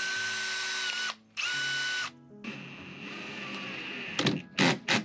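Cordless Makita drill running in two loud bursts with a motor whine that steps up in pitch as it drills through a plastic breaker box. This is followed by a softer, steadier run and several short, sharp bursts near the end as the drill fixes the box to the wall.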